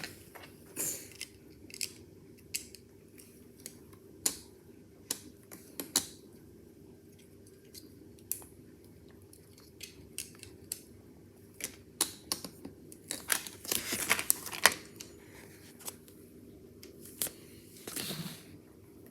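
Lego bricks being handled: irregular sharp plastic clicks and knocks, with a short burst of clattering about two thirds of the way through.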